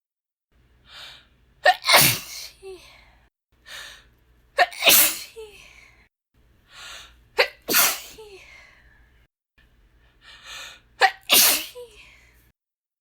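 A woman's deliberate, unstifled "ah'shhiee!" sneezes, four in a row, spaced about three seconds apart. Each begins with a quick breathy in-breath, then a sharp voiced catch that trails off into a long hiss.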